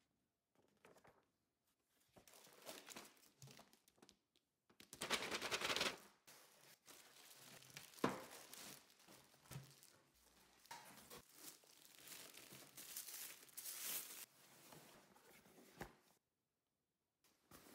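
Paper and plastic packaging rustling and crinkling as grill parts are handled and unpacked. A loud burst of rustling comes about five seconds in and a sharp knock about eight seconds in.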